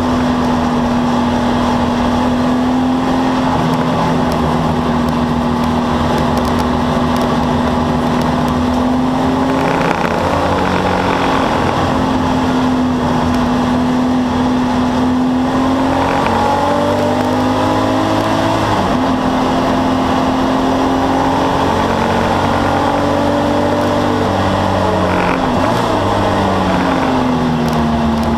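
Porsche 964 911 race car's air-cooled flat-six heard from inside the cockpit at speed, its note holding steady for long stretches. The pitch drops and climbs again briefly about ten seconds in, around the middle, and near the end as the driver lifts and changes gear.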